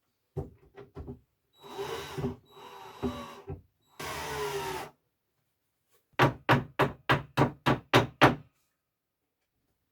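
A few knocks and scraping against wood, then a quick run of eight hammer blows, about four a second, as a cupboard is fitted into place.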